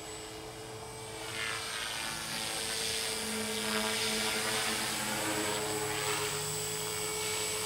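Align T-Rex 450 Pro electric RC helicopter in flight: the steady whine of its brushless motor and gears under the whir of the spinning rotor blades. It gets louder about a second and a half in as it comes closer, and the sound sweeps as its distance changes.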